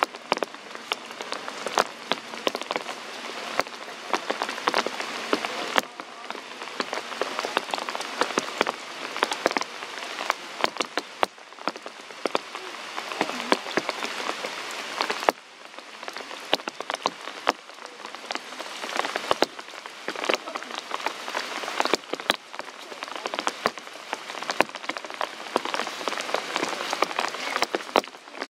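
Steady rain falling, with many close, sharp drop hits on leaves and ground.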